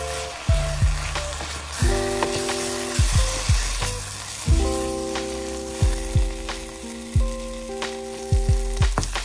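Food sizzling as it fries in a pan, a steady hiss, under background music with held chords and a regular drum beat.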